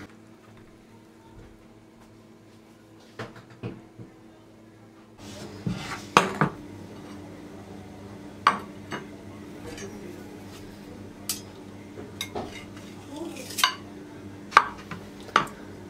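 Metal cake spatula scraping and clinking against a glass baking dish and a ceramic plate as a slice of cake is lifted out and set down. A few light clicks early, then a run of sharp separate clinks over the last ten seconds, over a low steady hum.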